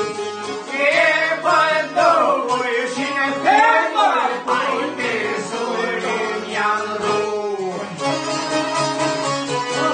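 A man singing an Albanian folk song, accompanied by long-necked Albanian folk lutes and an accordion. The voice stops about eight seconds in, leaving the plucked lutes and accordion playing on.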